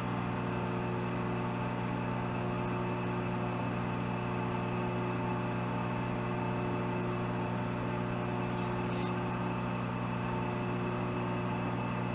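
Steady electric motor hum, even in level throughout, with a couple of faint light clicks about nine seconds in.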